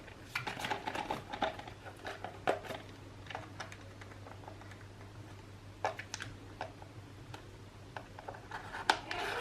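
Small irregular clicks, scratches and rustles of a small cardboard SSD retail box being handled as its seal is cut and the box opened. They are densest in the first few seconds, with a few more later on.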